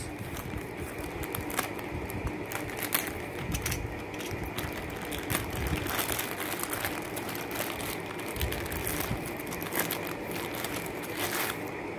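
Plastic courier mailer being slit with a utility knife and torn open by hand: irregular crinkling and rustling of the plastic wrapping.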